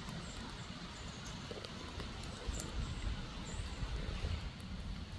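Low rumbling bumps of the phone being handled and moved, loudest in the second half, over a steady outdoor hiss. A few faint, short high chirps and light clicks are scattered through.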